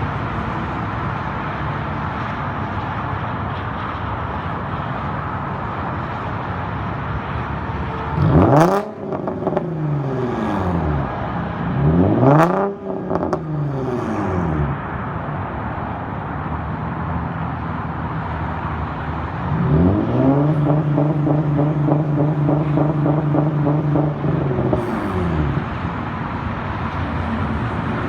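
Nissan 350Z's 3.5-litre V6 through a muffler- and resonator-deleted exhaust, idling, then revved twice, each rev rising and falling with a sharp pop at the top. About twenty seconds in it is held at a steady rpm on launch control with a fast, regular stutter for about five seconds, then drops back to idle with another pop. Near the end a new rev begins.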